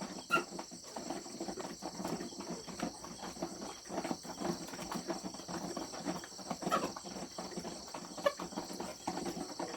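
Chickens and goats pecking and eating scattered grain, a stream of small irregular taps, over a steady high drone of crickets.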